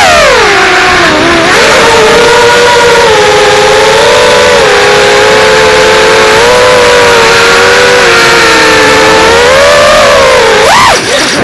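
A 5-inch FPV quadcopter's motors and propellers whining in flight over a rush of air. The pitch shifts with throttle: it falls at the start, holds fairly level, then rises sharply and drops again near the end.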